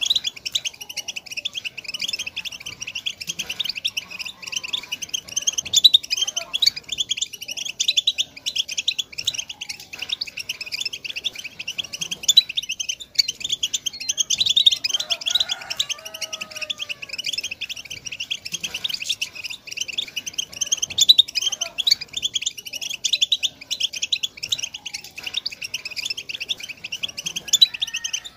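European goldfinch song: a continuous rapid twittering of chirps and trills, high and thin. It is the 'widani' style of goldfinch song that breeders play to tutor young goldfinches.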